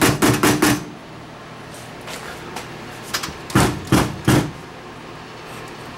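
Hand tapping on the sheet-metal top cover of a Pioneer VSX-530 AV receiver: about five quick knocks in the first second, then three heavier thumps around the middle as the unit is gripped and handled.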